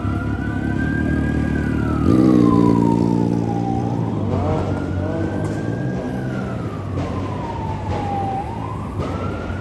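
Emergency-vehicle siren wailing, slowly rising and falling about every four seconds, over the running of car engines; one engine's note grows loud about two seconds in and fades a couple of seconds later.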